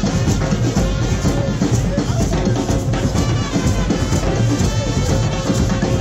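Carnival street band's drums and percussion playing a continuous driving beat, with a steady held note over it.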